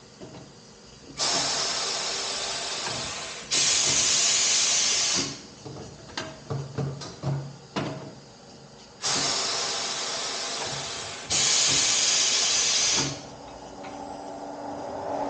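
Loud hiss in four bursts of about two seconds each, coming as two pairs with the second of each pair louder, and short clicks and knocks between the pairs.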